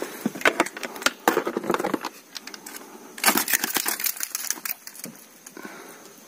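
A freshly landed grouper flapping on the wooden plank floor of a small boat and being gripped with a lip grip: two spells of irregular knocks and rattles, the second starting about three seconds in.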